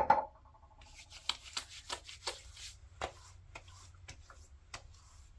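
A sharp knock, then a run of quick pats and rubs of hands on the face, working in a splash of aftershave, thinning to a few light taps.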